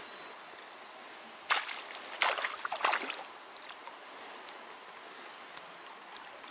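Creek water running faintly, broken by three loud rushing noises between about one and a half and three seconds in.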